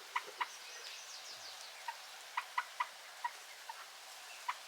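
Chickens clucking: a scatter of short single clucks, with a quick run of three a little past halfway.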